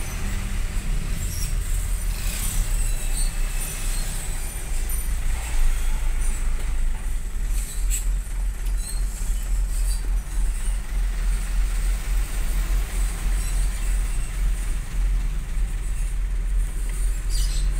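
A large vehicle's engine heard from inside its cab: a low, steady rumble as it creeps along in slow traffic, with light scattered rattles.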